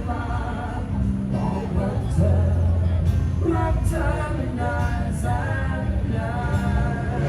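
Live music: a song with a singer over a steady bass line.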